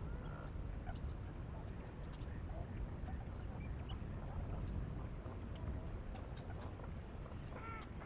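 Outdoor wetland sound: scattered distant bird calls over a steady low rumble and a steady thin high-pitched tone, with a short burst of ducks quacking near the end.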